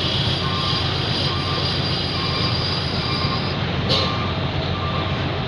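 Steady low mechanical rumble and hiss of a ferry's engines. Over it, a short electronic beep repeats about once a second, like a vehicle reversing alarm, and a single sharp click comes near the end.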